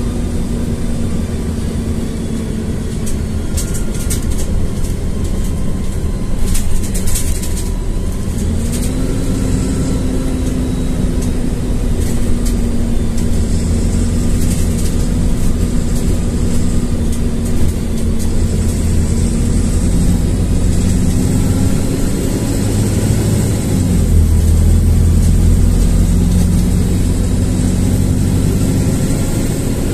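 LiAZ-4292.60 city bus's diesel engine and drivetrain running, heard from inside the cabin: a steady hum and whine whose pitch climbs about nine seconds in, as the bus speeds up, then drops near the twenty-three-second mark and rises again. Scattered clicks and rattles sound in the first several seconds.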